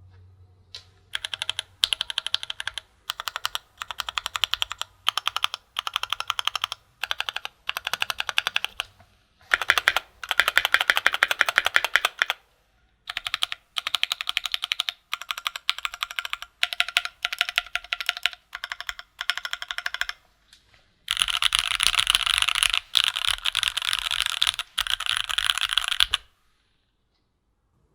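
Typing on a Keychron Q2 prototype mechanical keyboard fitted with Gateron G Pro Red linear switches: runs of quick keystrokes in bursts with short pauses between them. Two longer, faster runs come about ten seconds in and from about 21 to 26 seconds, after which the typing stops.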